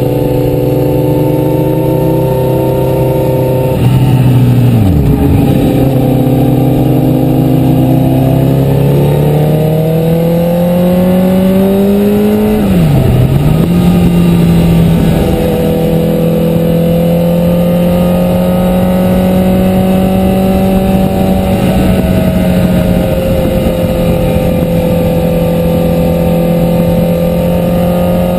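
Sport motorcycle's engine running under way, heard from on the bike. The revs dip sharply and pick up again about four seconds in, climb steadily, dip sharply again around thirteen seconds in, then hold fairly steady.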